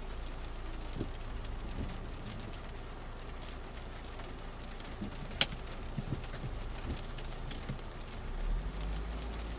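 Heavy rain falling on the car's roof and windscreen, heard from inside the cabin as a steady hiss with scattered drop taps. One sharp tap about halfway through is the loudest sound, and a low rumble comes in near the end.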